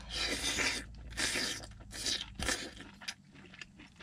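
A man chewing a mouthful of pan-fried steak close to the microphone: crunchy mouth noises in a run of short bursts over the first two and a half seconds, then fading to faint ticks.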